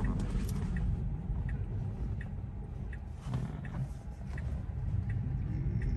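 Low road and tyre rumble inside a Tesla's cabin as the car slows nearly to a stop, with a turn signal ticking steadily about once every 0.7 seconds. A faint rising whine comes near the end as the car pulls away.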